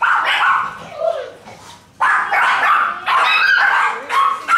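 A dog yelping and barking over and over in short high bursts, with whining between them.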